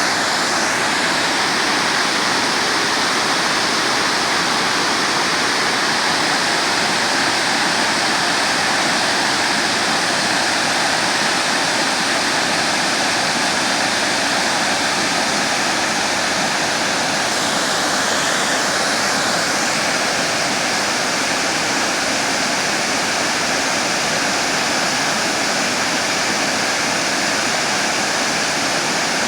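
Water pouring down a stepped dam spillway in a steady, unbroken rush.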